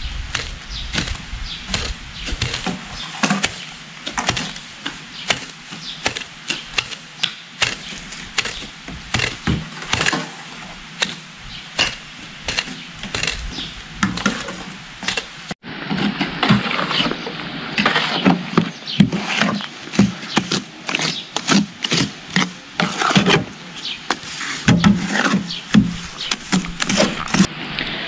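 Nettles being picked by hand: irregular crisp snaps of stems and rustling of leaves. A little past halfway the sound changes abruptly to denser clicks and light knocks.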